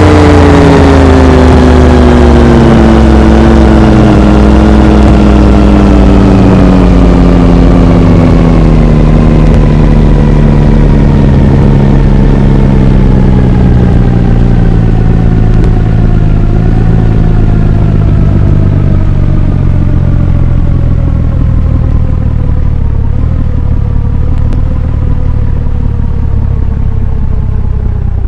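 Over-speed ceiling fan winding down: its whirring hum falls slowly and steadily in pitch as the fan loses speed, loud, over a steady low rumble.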